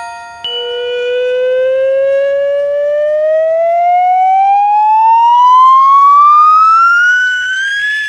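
Cartoon sound effect: one long pitched tone that starts about half a second in and glides slowly and steadily upward for about seven seconds. A chime note rings out and fades during the first two seconds.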